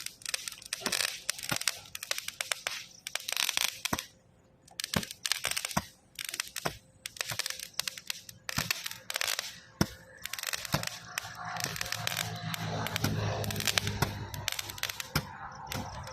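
A 30-shot fireworks cake firing: rapid, irregular sharp cracks and crackling of bursting stars, with brief pauses between volleys. A low steady hum joins the crackle about two-thirds of the way through.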